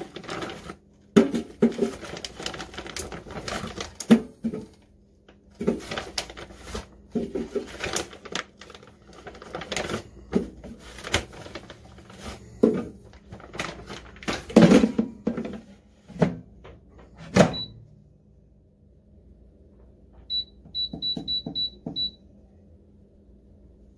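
Plastic bag of chicken wings rustling and crinkling, with sharp knocks and clatters as the wings are handled and the air fryer basket is worked. Then the air fryer's control panel beeps once, and about 20 s in beeps about six times in quick succession as its buttons are pressed.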